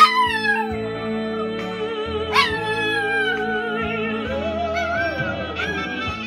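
Small dog howling over music with long held notes. Two long howls start high and slide down in pitch, one at the start and another about two and a half seconds in.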